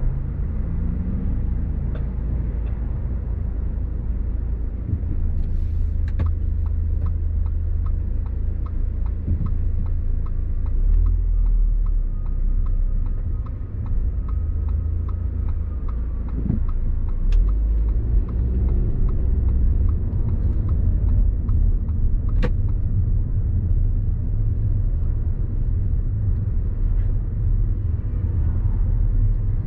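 Car driving on city streets, heard from inside: a steady low rumble of engine and tyres. The engine note climbs briefly near the start and again about two-thirds through, with a run of light regular ticks and a few sharp clicks in between.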